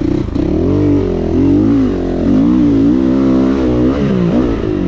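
GPX 450 four-stroke dirt bike engine under hard riding, revving up and dropping back several times as the throttle is worked.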